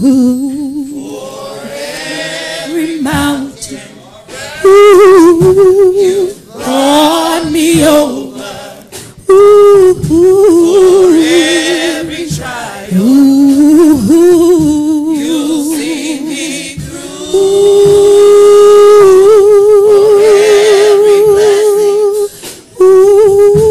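Gospel choir singing a slow praise song, with wide vibrato on drawn-out words. About three-quarters of the way through, one note is held for several seconds.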